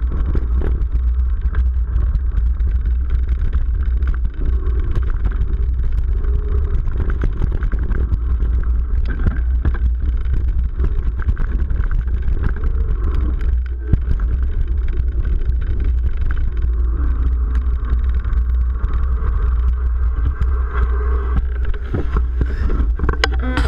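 Steady wind rumble on an action camera's microphone while riding a mountain bike down a dirt trail, with frequent rattles and knocks from the bike over rough ground. One sharper knock comes about halfway through.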